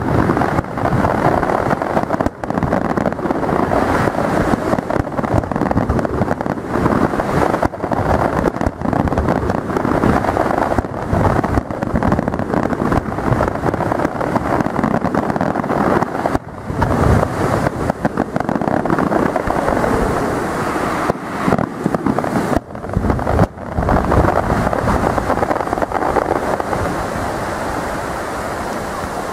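Fireworks display: a dense, continuous barrage of aerial shell bursts and crackle, the bangs overlapping one another. About 24 seconds in the bangs stop and a steady noise is left.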